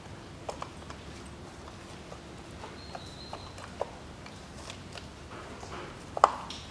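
Scattered light clicks and knocks of a plastic ignition coil pack being worked loose and lifted off the spark plugs of a Chevrolet Cruze 1.8 engine, with the loudest knock near the end.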